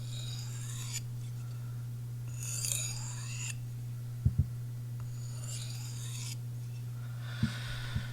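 Chris Reeve Sebenza's Magnacut steel blade drawn edge-first across a sharpening surface in four slow strokes, each a hissing scrape with a faint ring. These are the finishing passes on a micro bevel, done to remove small chips from the edge. Two light knocks fall between the strokes.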